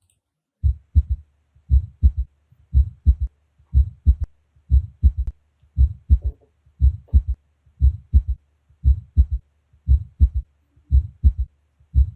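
Heart sounds as heard through a stethoscope, with a third heart sound (S3) falling just after the second heart sound. Each beat goes 'tum-tatum' in a three-beat gallop rhythm, repeating about once a second.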